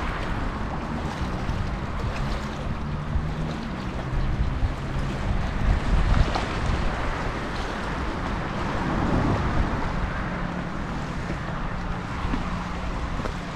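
Outdoor ambience dominated by wind rumbling on the microphone, with the low steady hum of a distant engine that fades in and out.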